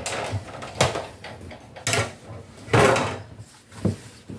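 A few separate knocks and sliding clatters, roughly a second apart and loudest near the end, as the cutting plates and thin metal die are taken out of a manual die-cutting machine and pulled apart to free the cut card.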